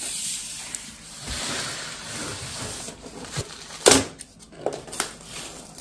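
Large flat cardboard parcel being handled, with a rustling scrape of cardboard, then one sharp slap-like knock about four seconds in and a few lighter clicks.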